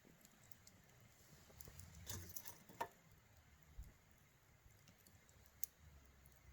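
Campfire crackling faintly: scattered small pops and snaps, with a brief flurry of crackles about two seconds in and a sharper pop shortly after.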